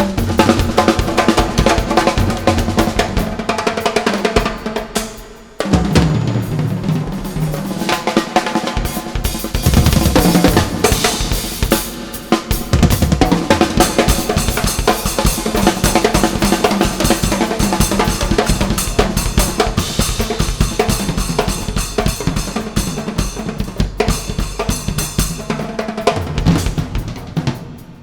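Drum-heavy music with a full kit (bass drum, snare, drum rolls) and deep bass, playing fast, with a short drop-out about five and a half seconds in.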